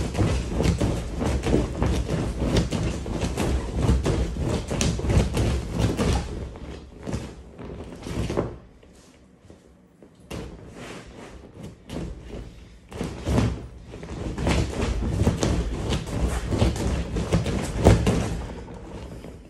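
Black vinyl inflatable air mattress being jumped on: a dense run of irregular thuds. It goes quiet for about two seconds near the middle, then the thuds start again.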